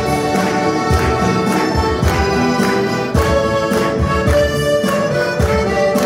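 Live church ensemble music: acoustic guitar strumming a steady beat under sustained accordion chords.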